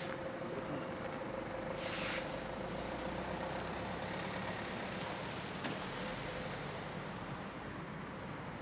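Steady low outdoor background noise with a faint hum that fades away over the first few seconds, and a brief hiss about two seconds in.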